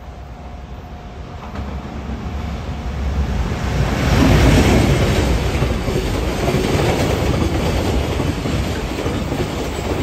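Container freight train hauled by an EF510 electric locomotive approaching and passing close by, its container flatcars rolling past on the rails. It grows steadily louder over the first four seconds and then stays loud as the wagons go by.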